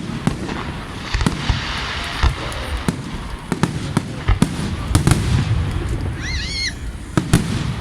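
Fireworks going off: a fast, irregular series of sharp bangs and crackles.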